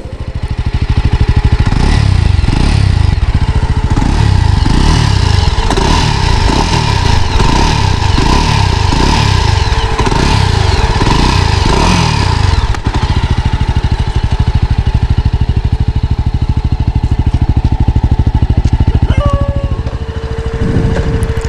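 Jawa 42 2.1 motorcycle's single-cylinder engine, revved in short blips about once a second for the first ten seconds or so, then left running steadily at idle.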